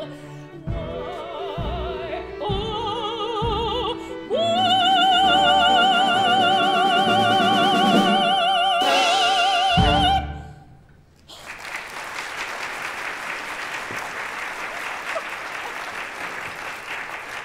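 A woman's operatic voice finishes an aria over the orchestra, which marks the beat with short chords, then holds a long high final note with wide vibrato that ends on an orchestral chord about ten seconds in. After a short lull, an audience applauds.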